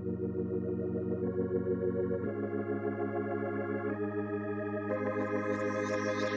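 Background music: sustained organ-like keyboard chords that change every second or so, with a brighter shimmering layer joining about five seconds in.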